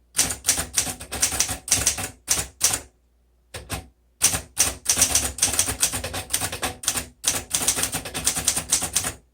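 Keys of a 1954 Underwood Quiet Deluxe portable manual typewriter striking the platen in quick runs of clicks, with two brief pauses along the way.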